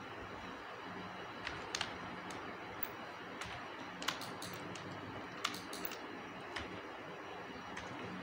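Computer keyboard keys and mouse buttons being pressed: about ten sharp, short clicks at irregular intervals over a steady faint hiss and low hum.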